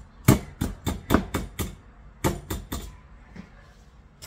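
A wire whisk knocking against the side of a stoneware mixing bowl as nutty pancake batter is stirred, with sharp clacks about three times a second. The clacks pause briefly about two seconds in, come in a short second run, and stop about three seconds in.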